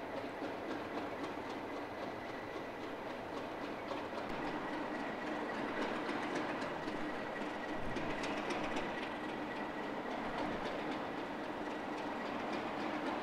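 A Class 37 diesel locomotive's English Electric V12 engine idling with a steady hum and a thin high whine. A run of faint clicks comes through the middle.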